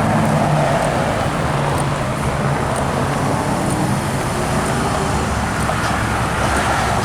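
Steady road traffic noise from slow, jammed cars, with a low engine hum under a constant wash of road noise.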